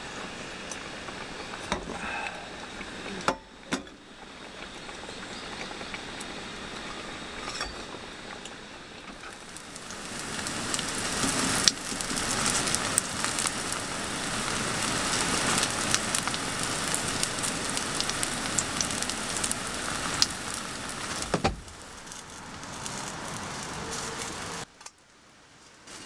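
Small pancakes of vegetable batter frying in oil in a nonstick pan: a loud, steady crackling sizzle that sets in about ten seconds in and cuts off abruptly about twelve seconds later. Before the frying there is quieter hiss with a few light metal clinks of a spoon against a bowl.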